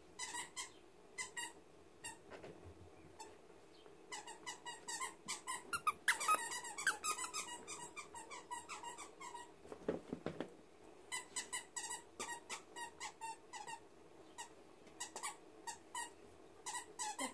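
Rapid short, high squeaks in irregular runs, densest and loudest about six seconds in, while small dogs play close by.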